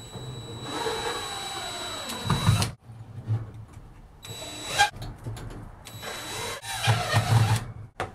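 Cordless drill with a long Phillips bit driving 2-inch galvanized wood screws into wood, in three short runs with pauses between, and low knocks as the screws go in.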